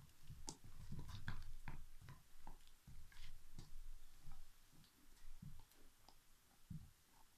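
Alaskan Malamute gnawing a big turkey bone: irregular crunches and clicks of teeth on bone, busiest over the first four seconds or so and sparser after.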